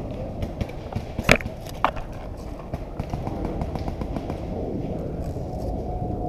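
Two sharp pops about half a second apart, about a second in, typical of paintball markers firing, over steady rustling and handling noise from the gun-mounted camera moving through dry leaves and dirt.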